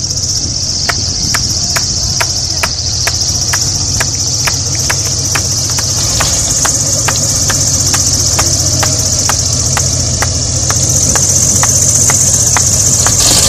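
MX2 aerobatic plane's propeller engine idling as it taxis, a low steady rumble that grows louder as it comes closer, with a regular tick about twice a second. A steady high-pitched insect chirring sits over it.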